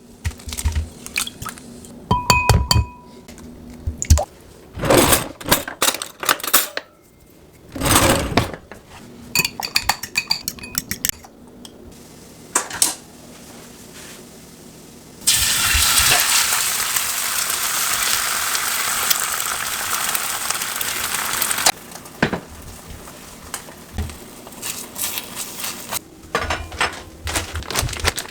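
Kitchen utensils and dishes clinking and knocking, some strikes ringing briefly. About halfway through there is a loud steady hiss for about six seconds, then more clinks.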